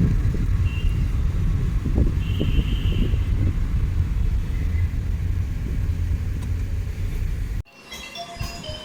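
Steady low rumble of road and engine noise inside a moving car. About seven and a half seconds in it cuts off abruptly and gives way to music of short high notes.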